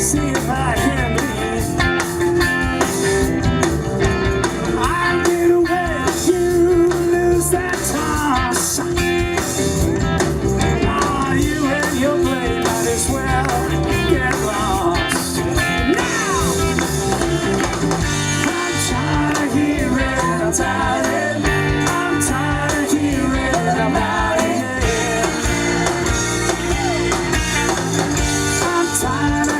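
Rock and roll band playing with guitar to the fore, in a stretch of the song without sung lyrics.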